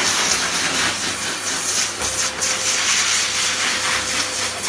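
High-velocity dog grooming dryer blowing a steady hiss of air through an Alaskan Malamute's thick double coat, blasting out loose undercoat. A faint steady tone joins the rush of air about two seconds in.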